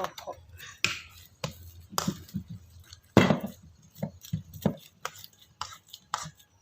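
Kitchen knife chopping on a cutting board in uneven strokes, about two a second, one heavier chop about three seconds in.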